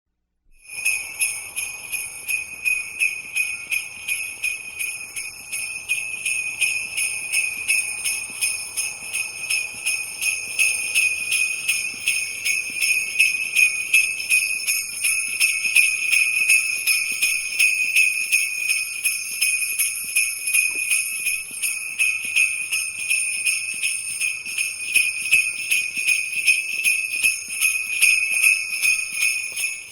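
Jingle bells shaken continuously in quick, even shakes, a bright jingling that starts about half a second in.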